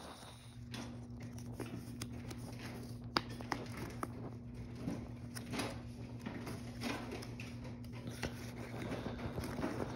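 Paper card and leaflet being handled, with scattered light crinkles and taps, over a steady low hum.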